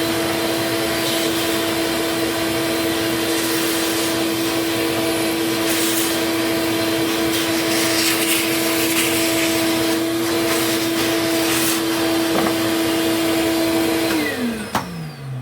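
Small electric vacuum-type motor running at a steady high speed with a steady hum, then switched off and spinning down with falling pitch near the end.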